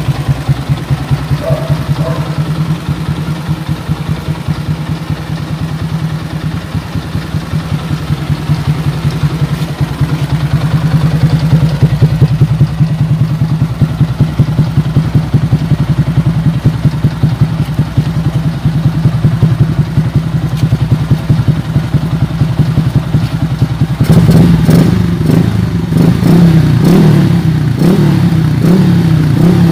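Yamaha Sniper MX135 single-cylinder four-stroke engine, bored to 177cc, running steadily through a Kalkal aftermarket pipe on a morning warm-up, with a loud, even exhaust pulse. About 24 seconds in it runs louder and rougher for the last few seconds, as if the throttle is held open.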